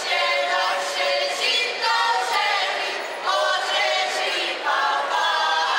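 Men's and women's voices singing a Croatian folk song from Lika a cappella, as the dancers sing while dancing a closed circle dance (kolo). The song comes in short phrases of held notes with brief breaks between.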